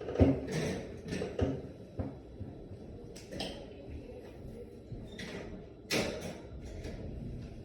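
Irregular knocks and clatters of a cat cage and its door being handled, the loudest about a quarter second in, with a few more spread through.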